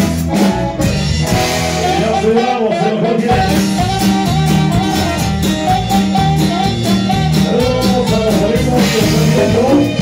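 Live band music: a wandering melody line over a steady, stepping bass line, playing without a break.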